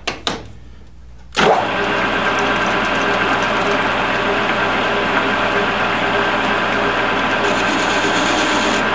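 A couple of sharp clicks from the lathe's quick-change tool post, then a geared-head metal lathe starts about a second and a half in and runs steadily, its spindle and gearbox giving a steady mechanical whine.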